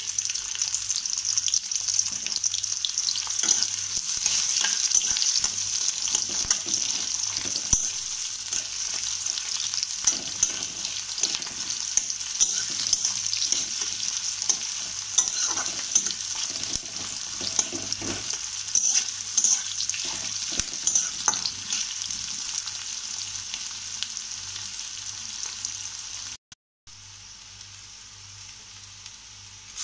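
Sliced onions sizzling in hot oil in a kadai, with a steady hiss and the spatula clicking and scraping against the pan as they are stirred. Near the end there is a brief break, after which the sizzle is quieter.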